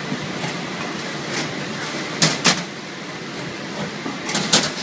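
L-type fully automatic shrink-film sealing machine running with a steady mechanical noise, broken by sharp clacks: a pair about two seconds in and another cluster near the end.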